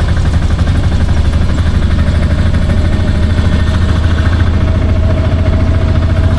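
Vehicle engine running steadily with a fast, even pulse, heard from on board while riding. A faint thin whine above it grows clearer in the second half.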